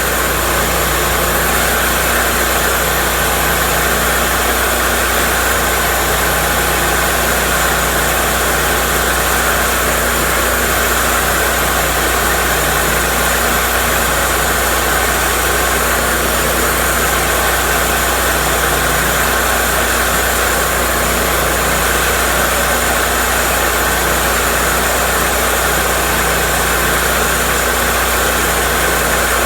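Portable bandsaw sawmill running steadily, its engine and blade droning at an even, unchanging pitch.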